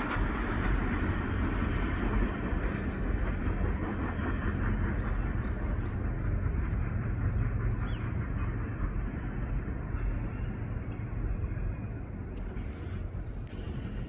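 Freight train cars rolling over the rails: a steady rumble of wheels on track, easing off a little toward the end.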